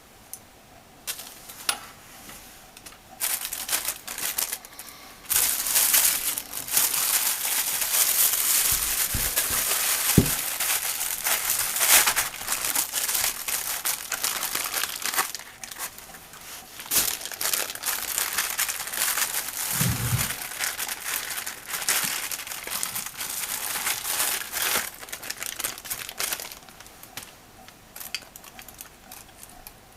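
Packaging crinkling and rustling as it is unwrapped, in long dense stretches with a couple of brief low thuds.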